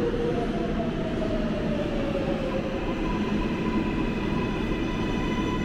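7 train subway cars rolling along the platform: a steady rumble of wheels and motors. A whine falls slowly in pitch over the first two seconds, and a steady higher whine comes in about halfway through.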